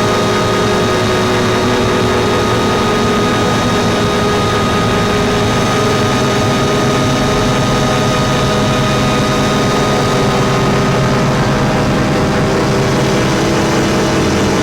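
Steady drone of dense rumbling noise with several held tones over it, unchanging throughout: a space-style 'planet sound', presented as a planet's magnetospheric frequency pitched into hearing range.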